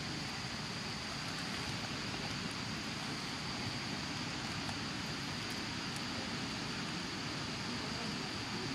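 Steady outdoor background hiss with a constant high-pitched whine and a few faint ticks; no distinct event stands out.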